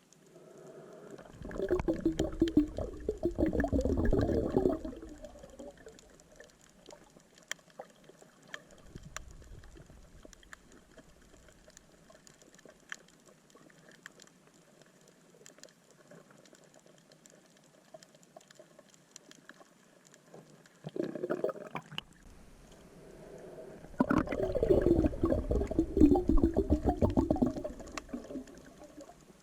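Water rushing and sloshing past an underwater camera, in two loud spells about a second in and again near the end, with a quiet crackle of faint clicks in between.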